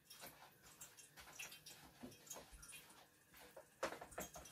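Near silence, with faint scattered clicks and taps of batter being mixed in a bowl. The taps are a little louder near the end.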